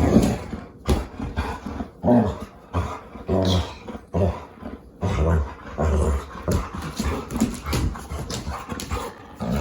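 Pet dog vocalizing in rough play, in a string of short bursts about one a second.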